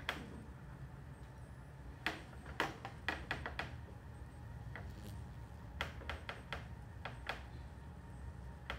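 Vibration-plate exercise machine running with a steady low hum, overlaid by irregular sharp clicks and knocks, several in quick succession.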